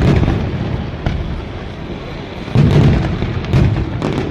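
Fireworks going off overhead: repeated low booms from bursting aerial shells, with crackling between them. The heaviest run of booms comes about two and a half seconds in.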